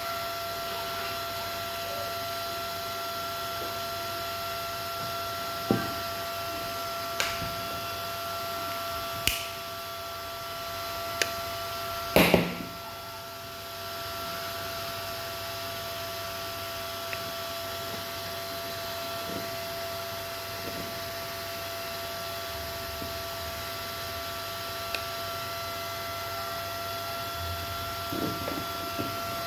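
A steady electrical hum with a few higher steady tones, broken by scattered clicks and knocks of tools or parts being handled at a workbench, the loudest knock about twelve seconds in and a cluster of knocks near the end.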